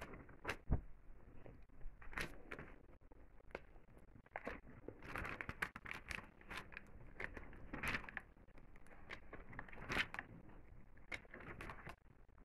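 Paper rustling as the pages of a glossy magazine are turned and handled, in short irregular swishes with a few sharper flicks.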